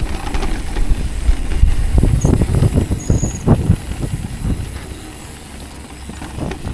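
Mountain bike riding down a dirt trail: a steady rumble of wind on the microphone and tyres rolling over the ground, with the bike rattling and knocking over bumps, busiest two to four seconds in and easing off near the end.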